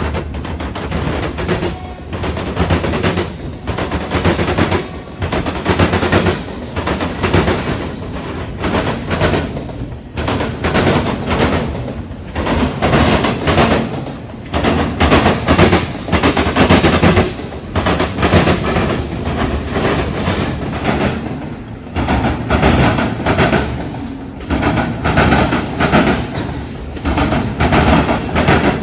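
Norfolk Southern mixed freight train rolling past, its wheels banging over the crossing diamonds in a loud, rapid, irregular clatter.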